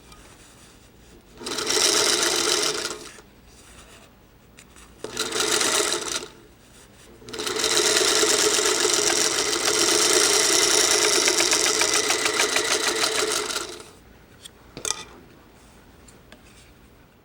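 Electric sewing machine stitching in three runs: a short burst about a second and a half in, another at about five seconds, then a long steady run of about six seconds. A couple of small sharp clicks follow near the end.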